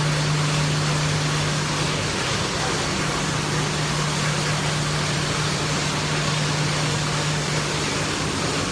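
Screw-making machines in a factory workshop running steadily: a dense, even mechanical noise with a constant low hum underneath.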